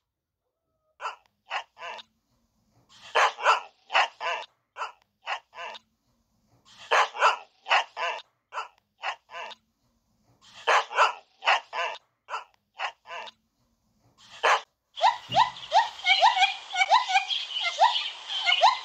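A dog barking in groups of several quick barks with short silent gaps between them. About fifteen seconds in, a different call takes over: a dense run of quick, rising squeaky monkey calls.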